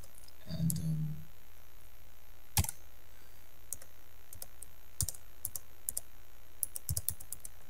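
Scattered keystrokes and clicks on a computer keyboard and mouse while login details are entered, a sharp click about two and a half seconds in and a cluster of quicker ones near the end, over a faint low hum.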